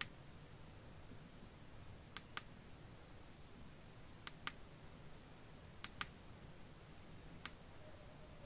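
Push button of a Magicshine 180-lumen LED bicycle tail light clicking as it is pressed through its light modes: about five faint presses a second or two apart, most heard as a quick double click.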